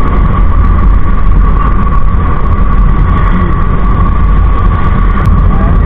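Wind rushing over the microphone of a camera on a moving motorcycle, with the noise of the motorcycle running in traffic underneath and a steady high whine.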